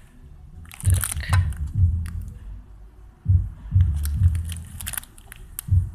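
Handling noise: plastic sheeting crinkling and crackling with scattered clicks while a masked car door glass is moved about. Uneven low rumbles of handling on the microphone come about a second in and again past the middle.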